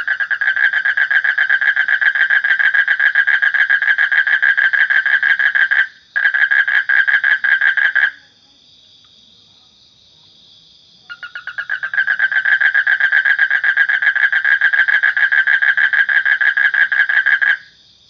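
A toad calling in long, rapid pulsed trills. The first trill runs for about eight seconds with a momentary break partway through. After a pause of about three seconds a second trill of about six seconds follows and stops shortly before the end.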